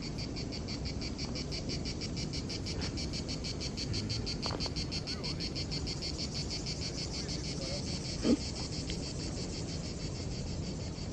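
Insects chirring in a fast, steady pulsing trill, with a low rumble underneath and one brief thump about eight seconds in.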